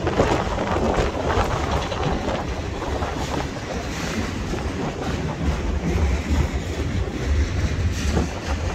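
Freight train of autorack cars rolling past at close range: a steady rumble and rattle of wheels on rail. Wind buffets the microphone throughout, adding a gusty low rumble.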